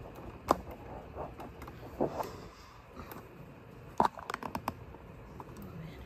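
Scattered sharp clicks and light knocks, with a quick run of taps about four seconds in: handling noise as the recording phone is moved and set in place.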